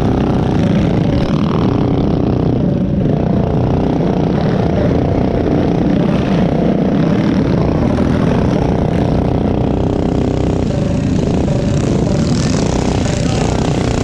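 Several mini bike engines racing on a dirt track, a steady loud buzz whose pitch rises and falls as the riders accelerate and ease off.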